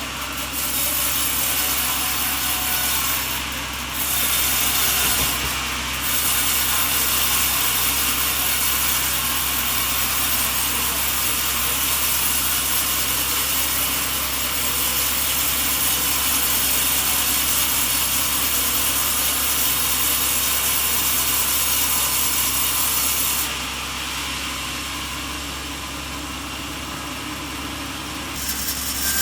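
Sawmill saw cutting through a coconut log, making a steady, high, hissing sawing noise. It dips briefly about four and six seconds in and goes softer and duller for a few seconds near the end.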